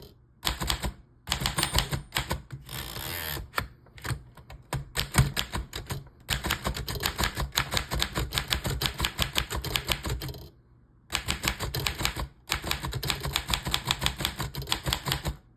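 Keys of a 1941 Remington Streamliner manual typewriter being struck in fast runs of sharp clacks, with short pauses between the runs.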